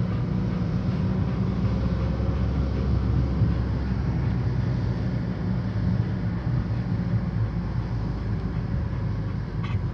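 A car running, heard from inside the cabin: a steady low drone of engine and road noise.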